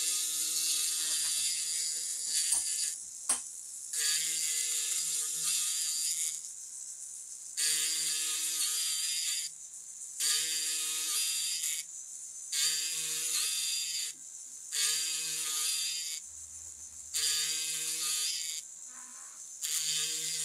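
Powered checkering cutter buzzing as it cuts lines into a hard walnut gunstock, in about eight runs of two seconds each with short pauses between. A single sharp click about three seconds in.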